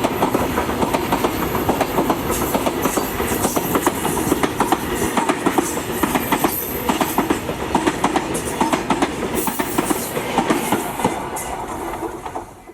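Freight train of tank wagons and covered goods wagons rolling past, its wheels clacking steadily over the rail joints in dense, irregular clicks over a continuous rumble. The sound fades out near the end.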